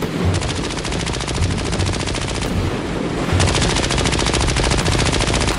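Sustained rapid machine-gun fire: a long, unbroken stream of closely spaced shots at a steady level.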